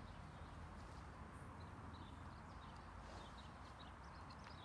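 Quiet outdoor ambience: a low steady rumble with scattered faint high chirps.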